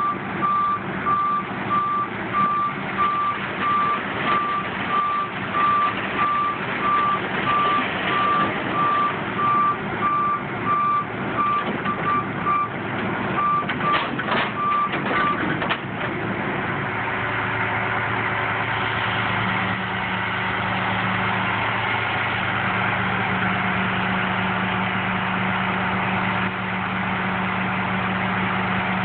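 Backup alarm beeping in a steady rhythm over a truck running, the beeping stopping about halfway; after that a steady engine hum continues while the end-dump trailer's bed is raised.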